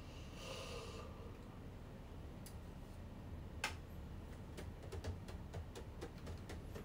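A man's yawn, trailing off about a second in, followed by scattered small clicks and taps, the sharpest one a little past halfway and a run of quicker ones near the end.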